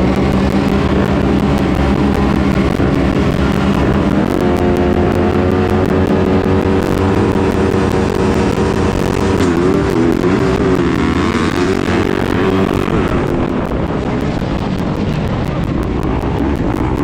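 Motocross bike engines, close to the on-board microphone, held at steady high revs at the starting gate, then revving up and down through gear changes as the bikes launch off the start about nine or ten seconds in.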